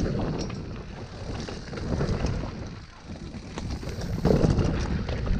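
Wind buffeting the microphone as a mountain bike moves off over dirt. The low rumble swells twice, with scattered small clicks and rattles throughout.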